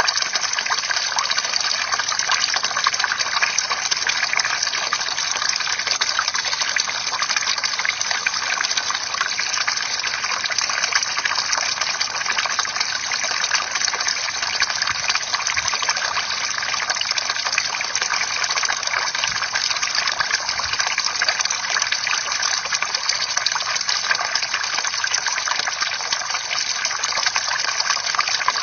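Bamboo water fountain: a steady splashing of falling water, with fine trickling and dripping.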